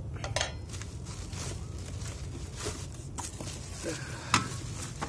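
Plastic wrap and cardboard packing rustling as a stainless steel pot is unpacked by hand, with scattered short rustles and a sharp click about four seconds in, over a steady low hum.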